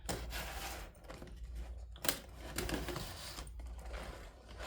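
A toy's retail packaging being handled by hand: irregular rustling with small clicks and taps, and one sharp click about two seconds in.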